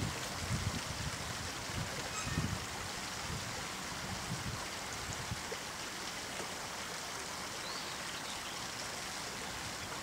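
Steady rush of flowing water, with low rumbling thumps during the first few seconds that then die away.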